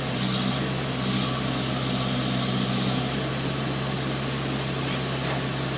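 Engine of the machine carrying a hydraulic breaker attachment, running steadily at a constant low pitch, with the breaker not striking.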